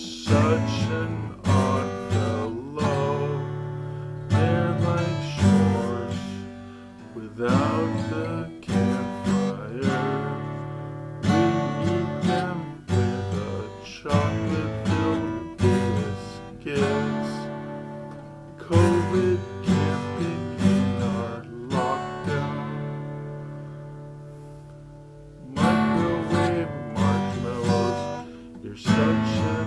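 Solo acoustic guitar playing an instrumental piece of strummed and plucked chords. Near the end a chord is left to ring and fade for a few seconds before the playing picks up again.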